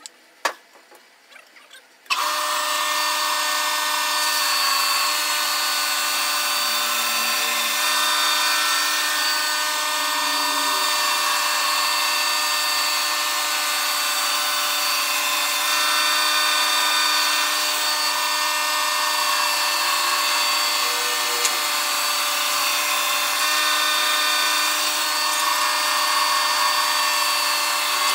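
WoodKing FB 20 horizontal band sawmill running steadily and cutting through a squared timber block, held tones over a wide hiss. It comes in suddenly about two seconds in, after a sharp knock.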